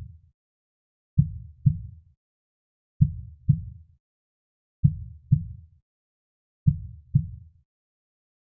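Slow heartbeat sound effect: low double thumps in a lub-dub rhythm, about one pair every two seconds, each thump dying away quickly.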